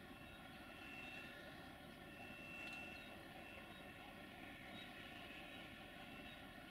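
Faint, steady drone of a distant diesel locomotive engine running, a low rumble with several held tones above it.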